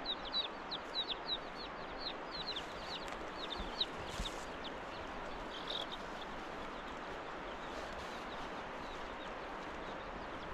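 Bird peeping: short high calls that drop in pitch, several a second, for about the first four seconds, then stop. A steady rushing noise runs underneath.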